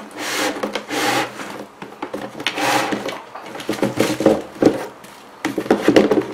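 Cardboard shoebox being opened and a pair of sneakers lifted out: a few rubbing swishes of cardboard, then a run of light knocks and scrapes as the shoes are handled against the box.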